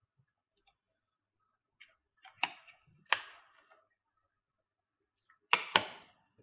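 Sharp plastic clicks from a small round plastic cable storage case being handled: two snaps a little over halfway through the first half as the hinged lid is shut, then two louder knocks close together near the end as the case is set down on the table.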